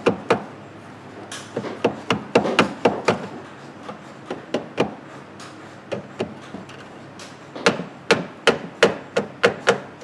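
A screwdriver tapping again and again on a roof-mounted module behind the headliner, in irregular clusters of sharp knocks. It is a tap test on a module suspected of being wet or corroded inside.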